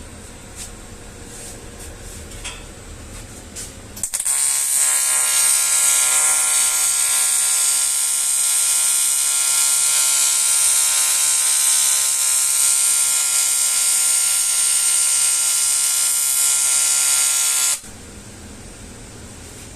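TIG (argon) welding arc on an aluminium alloy wheel: a steady buzz with hiss. It starts abruptly about four seconds in and cuts off about four seconds before the end.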